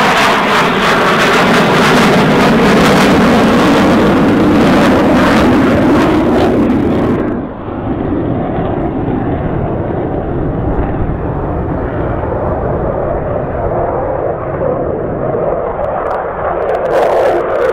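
F-16 fighter jet's Pratt & Whitney F100 turbofan, heard loud as the jet flies by, its tone falling in pitch as it passes. About seven seconds in, the sound switches abruptly to a duller, steady jet noise, which grows a little higher and louder near the end.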